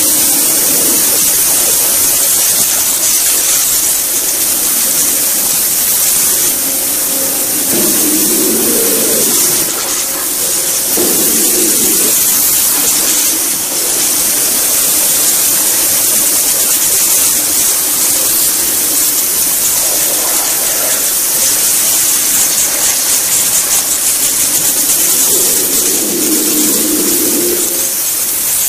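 Ultra-high-pressure abrasive waterjet cutting head running on a 94,000 psi pump and cutting a test part: a loud, steady hiss of the jet. A deeper rushing sound swells briefly a few times, about 8, 11 and 26 seconds in.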